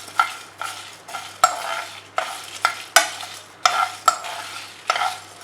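Whole spices (cinnamon, cumin, fennel seeds, cloves, coriander seeds, dry red chillies, peppercorns) being stirred as they dry-roast in a pan without oil. A utensil scrapes against the pan close to twice a second, with the dry seeds rustling in between.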